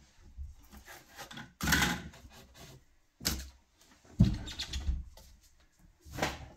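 Hand sanding and handling of a painted wooden cabinet door: a few separate rubbing strokes of sandpaper on the wooden frame, with a knock about four seconds in as the door is shifted on the table.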